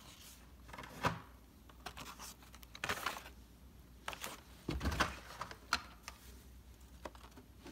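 Scattered light clicks and crinkles from plastic blister packs on cardboard cards of Hot Wheels cars being handled, in a handful of short separate bursts.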